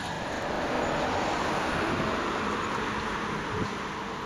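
Street traffic noise with an old-fashioned tram rolling away on its tracks: a steady rushing rumble that swells about a second in and slowly fades toward the end.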